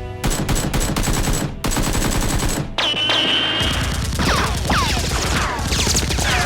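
Rapid automatic gunfire in two long bursts, split by a short pause near the middle. High falling whistles run through the second burst. It is loud throughout.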